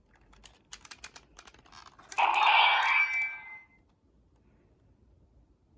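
Light clicks and taps of folded paper being handled, then a loud noisy rush lasting about a second and a half.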